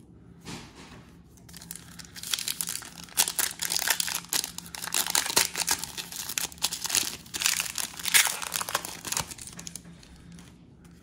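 Foil trading-card pack wrapper being torn open and crinkling in the hands, a dense run of crackles that starts about two seconds in and stops shortly before the end.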